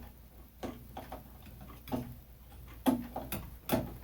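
A handful of sharp, irregularly spaced clicks and knocks, five or so, some with a short low thud.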